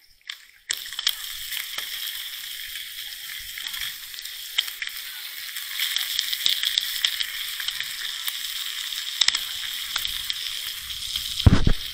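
Food sizzling in a hot frying pan, starting abruptly about a second in and running on steadily, with a short low thump near the end.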